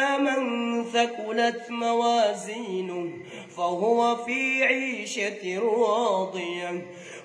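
A man's voice reciting the Quran in melodic tajweed style, with long held notes and wavering, ornamented pitch. The voice briefly drops about three seconds in and then goes on.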